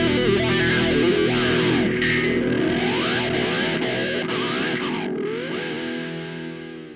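Background rock music led by a distorted electric guitar with sliding, bending notes over a held chord, fading out near the end.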